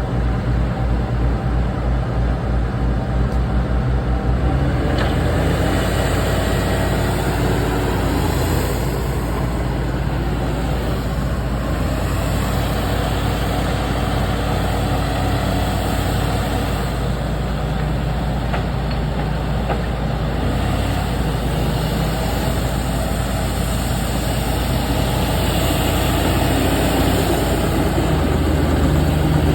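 Bulldozer's heavy diesel engine running steadily, with a low throbbing in the first few seconds and the engine note rising near the end.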